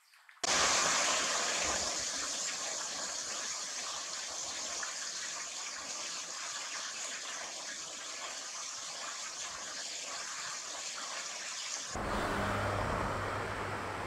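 Rushing stream water: a loud, steady hiss that cuts in suddenly about half a second in. Near the end it switches suddenly to a different steady noise with a low hum.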